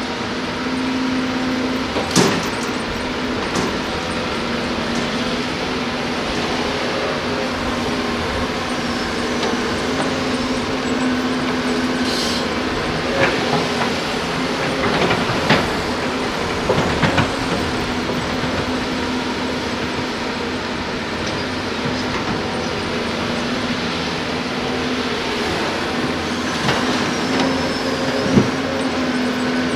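Diesel engine of heavy earthmoving machinery running steadily, with scattered metallic clanks and knocks and a short hiss of air about twelve seconds in.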